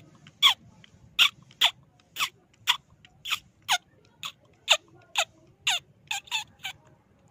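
Rat squeaks: a run of about fourteen short, high squeaks, each falling in pitch, coming roughly two a second with a quick pair near the end, then stopping shortly before the end.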